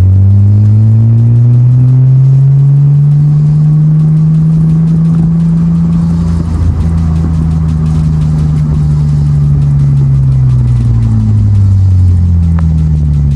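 Mitsubishi Eclipse engine running through a newly fitted aftermarket cat-back exhaust under way. The engine note rises over the first few seconds, holds, then slowly drops as the car eases off near the end.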